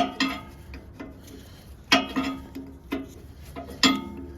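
Metal tool striking metal while working a stuck gearbox drain plug loose: three sharp clanks about two seconds apart, each followed by a lighter rebound knock and a brief metallic ring.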